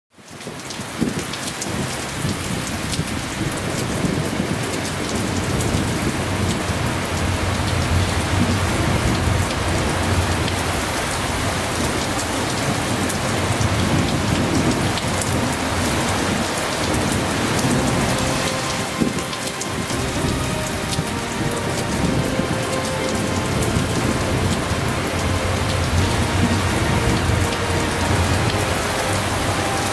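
Steady heavy rain: a dense hiss of falling drops with a low, uneven rumble underneath, fading in over the first second.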